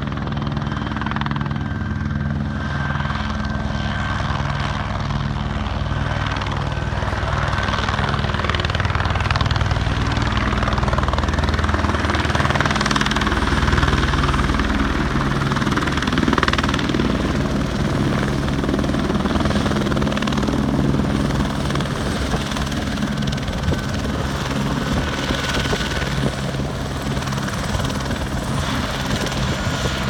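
Helicopter coming in to land, its rotor beating steadily with engine noise over it; the sound grows louder to a peak about halfway through as it nears and settles on the pad, then eases slightly.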